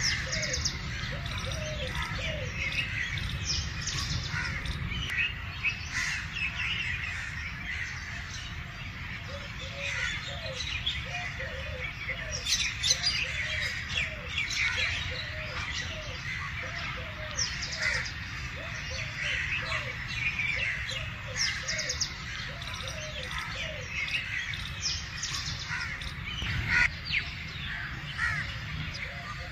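Mixed wild birdsong: many small birds chirping and twittering, with runs of a low, short note repeated about three times a second. There is a steady low background rumble.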